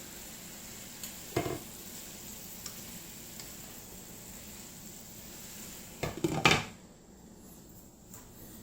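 Vegetables sizzling in butter in a lidded skillet, a steady hiss. A short metallic clink comes about a second and a half in, and a louder run of clattering metal-on-pan knocks about six seconds in, after which the sizzle is quieter.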